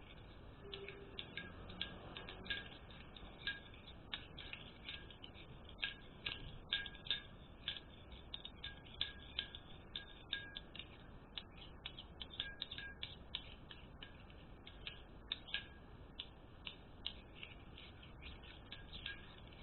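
A spoon stirring a thick slime of liquid detergent, liquid soap and salt in a bowl: faint, irregular little clicks and sticky squelches, several a second.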